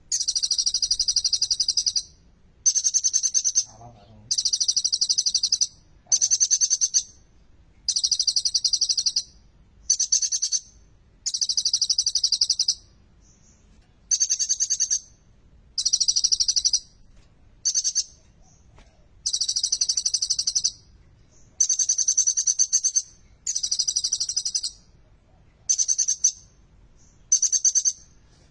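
Kolibri ninja sunbird singing: high, rapid chattering phrases about a second long, repeated roughly every two seconds with short pauses between.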